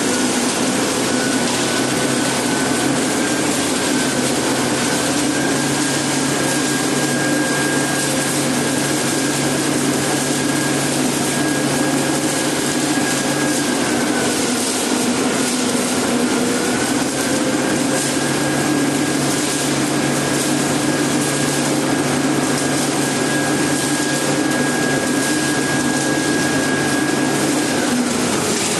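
Self-loading concrete mixer running steadily, its engine and machinery giving a constant mechanical noise with a high whine that dips briefly about halfway through and stops near the end.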